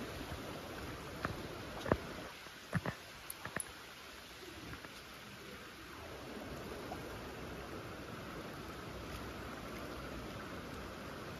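Fast-flowing river rushing past, a steady wash of water noise. A handful of short, sharp clicks and knocks come between about one and four seconds in.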